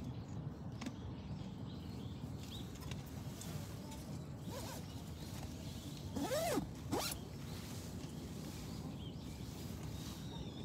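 A zipper pulled quickly, two rasping strokes about six seconds in, over a steady low background rumble.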